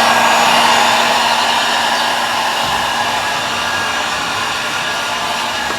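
Heat gun blowing steadily on heat-shrink tubing over the bike's cables, a hot-air hiss that eases slightly over the seconds.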